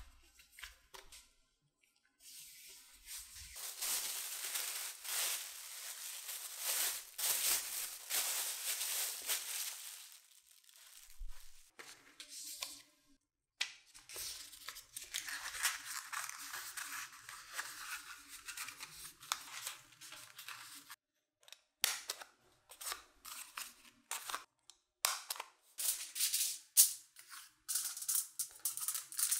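Crisp rustling as a sheet of paper is handled, then aluminium foil crinkling and crackling as it is wrapped around a rolled paper tube, with sharp crackles near the end.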